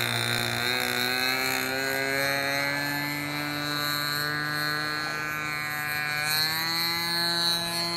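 OS 55AX two-stroke glow engine of an RC aerobatic plane running in flight, a steady buzzing whine whose pitch drifts slowly up and down as the plane manoeuvres.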